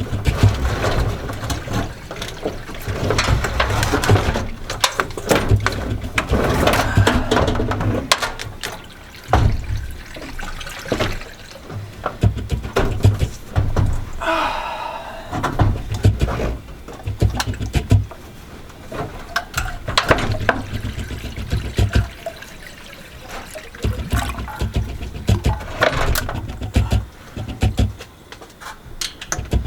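Engine coolant gushing and splashing out of a pulled radiator hose, with clanks and knocks of hands and tools working on the engine.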